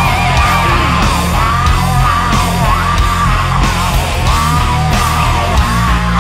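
Heavy metal music with a steady beat.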